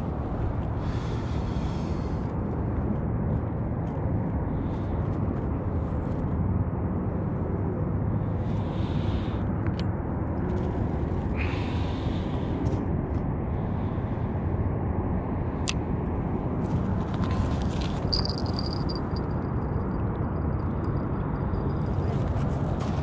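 Steady low outdoor rumble, with a few short rustling sounds and a faint thin high whistle over the last few seconds.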